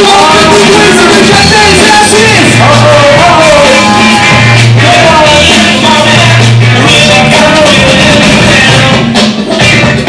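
Loud music with a sung vocal line over drums and a deep bass line.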